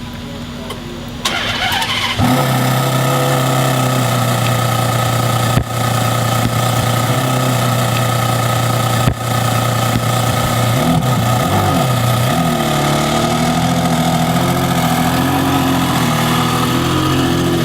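A supercar engine is cranked and catches about two seconds in, then idles steadily, its pitch wavering a little midway. Two sharp knocks land over the idle.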